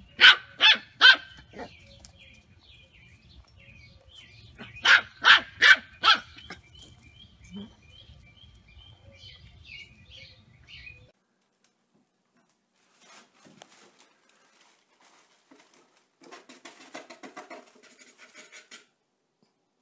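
A puppy barking: three sharp barks in quick succession, then four more a few seconds later, with faint chirping behind them. After a pause, faint rustling and scratching.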